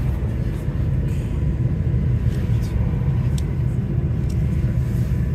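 Interior noise of a Volvo B5LH hybrid double-decker bus running: a steady low rumble with a few faint ticks and rattles.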